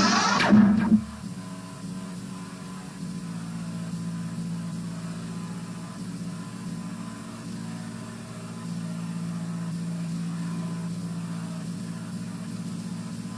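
The home video logo's music cuts off about a second in. A steady low hum with a buzzy edge follows, from the VHS tape's audio track under the silent warning screen.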